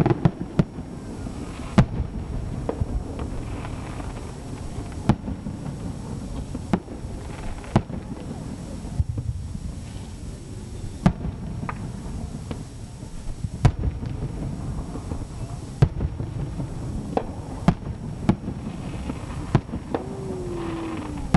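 Aerial fireworks shells bursting in the distance: a dozen or more sharp booms at irregular intervals, over a steady low rumble of background noise.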